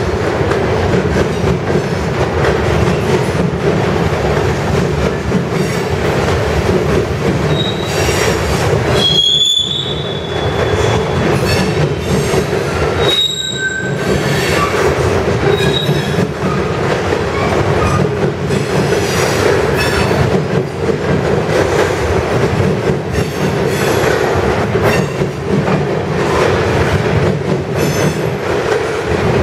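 Freight cars, covered hoppers and tank cars, rolling past at close range: a steady rumble of steel wheels on rail with repeated clacks. A few brief high-pitched wheel squeals come through in the middle.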